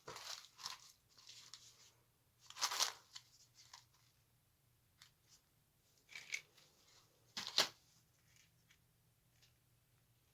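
Handfuls of small scrap tactile switches rattling and clicking as they are handled, in short irregular bursts of clatter.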